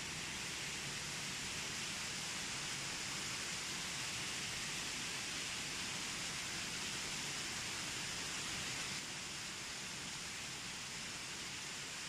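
Mountain stream rushing over rocks: a steady hiss of running water, dropping a little in level about nine seconds in.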